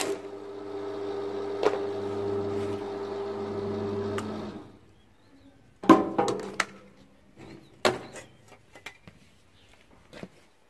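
Transformer stick welder humming steadily under mains power, a crackle of the arc near the start, then the hum cuts off suddenly about four and a half seconds in as the machine is switched off. A few sharp knocks and rattles follow.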